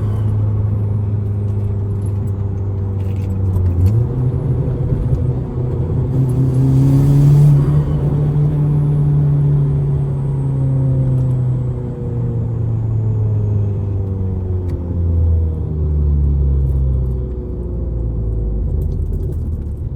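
Hyundai Genesis Coupe 2.0T's turbocharged four-cylinder engine running as the car is driven: the engine note holds steady, climbs about four seconds in to its loudest, then falls away slowly and drops lower near the end.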